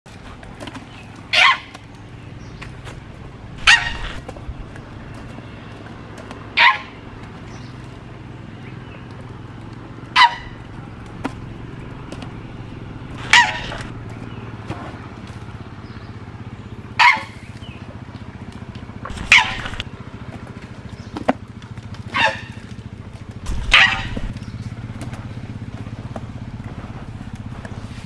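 Short, sharp animal calls, about nine of them, repeated every two to three and a half seconds over a steady low hum.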